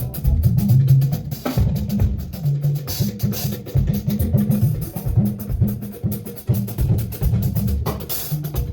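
Drum kit played in a steady groove, with repeated bass drum and snare hits, as in a sound check.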